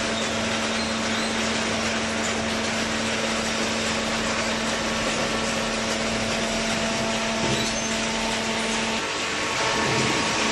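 Hydraulic paper baler running: a steady machine hum with one constant low tone over a hiss. The tone drops out about nine seconds in and returns near the end.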